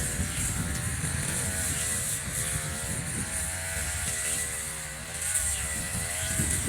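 Echo RM435 brush cutter's small two-stroke engine running, its pitch wavering up and down every second or so.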